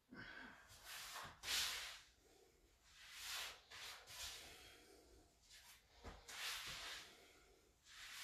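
A man's faint breathing as he recovers from hard exercise: a series of short, hissing breaths, one every second or two.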